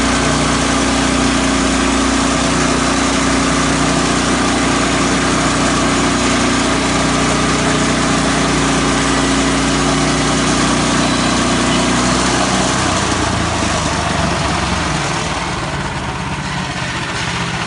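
Horizontal band sawmill running, a steady machine hum with a wide hiss over it. About two-thirds of the way through the hum drops away and the sound gets a little quieter toward the end.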